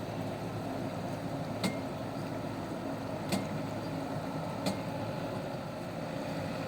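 Rice combine harvester's engine running steadily, with three sharp clicks or knocks about a second and a half apart.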